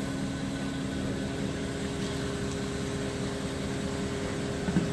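A vehicle engine idling steadily: an even low hum with a few held tones and no change in speed.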